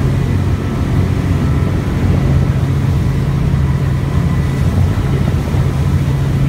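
Passenger ferry's engine running with a steady low hum, over a constant rush of water from the boat's wake.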